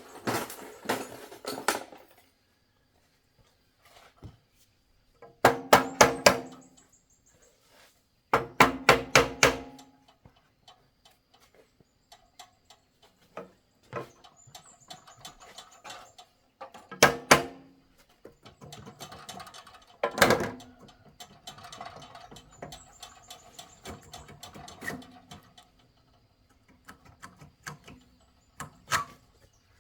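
Metal being struck in quick runs of blows, each run ringing on with a metallic tone, with scattered single knocks and clinks of tools on metal in between.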